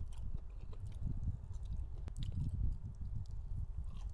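A man chewing a mouthful of shrimp spring roll close to a clip-on microphone, with small wet clicks and squelches over a low rumble.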